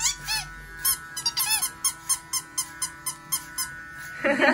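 Rubber duck squeeze toy squeaked over and over in quick short chirps, about two to four a second, with electric hair clippers humming quietly underneath. A louder rough burst comes near the end.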